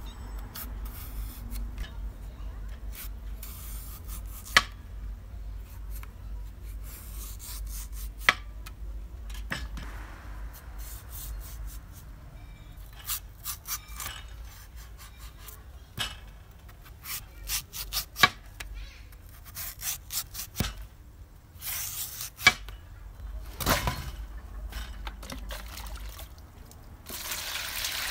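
A cleaver scraping and peeling the skin from elephant foot yam stalks, with scattered sharp knocks of the blade. Near the end, water is poured over the cut stalks in a steel bowl.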